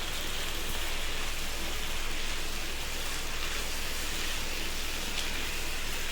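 Steady sizzling of chopped cabbage, tomato and onion frying in oil in a pan.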